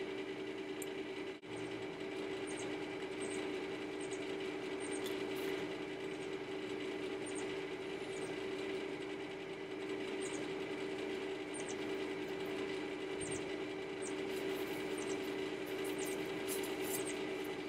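A steady machine hum holding two low, even tones, with brief faint high chirps now and then.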